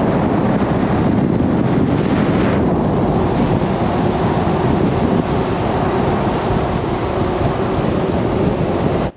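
Loud, steady rushing wind noise buffeting the microphone, as from a camera riding on a moving vehicle.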